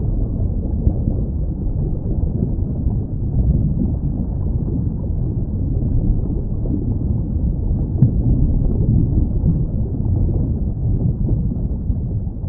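Steady, muffled low rumbling noise with nothing high in it, and a faint click about eight seconds in.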